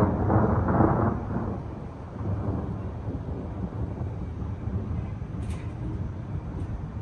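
Thunder rumbling, loudest in the first second and a half, then fading to a low, steady rumble.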